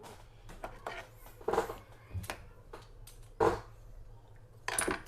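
Several short scrapes and knocks about a second apart, over a low steady hum: hand and tool handling as desoldered power transistors are worked loose from an amplifier circuit board.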